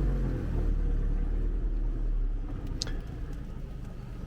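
A truck engine running as the truck rolls slowly along a road, a steady low rumble that eases off about three seconds in. A single sharp click sounds near the same moment.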